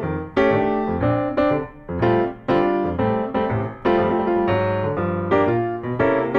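Background music led by piano chords, struck at a steady, even pace.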